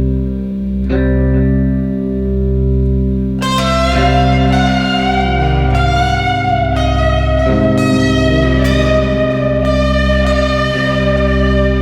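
Background music: guitar over a steady bass line, with a lead guitar melody coming in about three seconds in.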